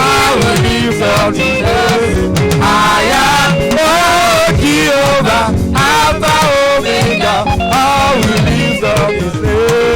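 Live worship music with a band: singing with a wavering melody over a steady drum beat and guitar.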